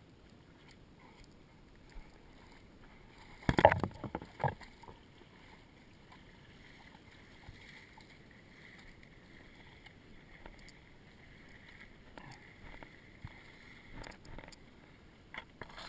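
Water sloshing and splashing around wading legs in shallow swamp water, with a brief loud burst of close splashing and rustling about three and a half seconds in and a smaller one a second later.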